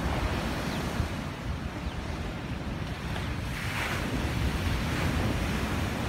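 Sea surf breaking and washing up a sand beach, with a brighter surge of wash about three and a half seconds in. Wind buffets the microphone throughout.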